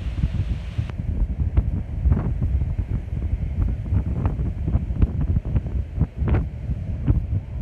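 Sea waves washing in, largely drowned by wind buffeting the microphone with a heavy, gusty rumble.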